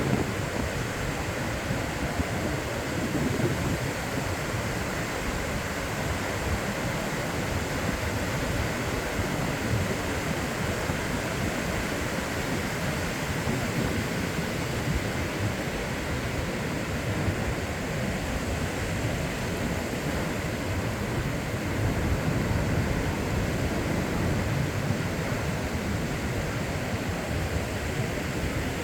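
Ocean surf washing onto a beach in a continuous rush of noise, swelling slightly now and then.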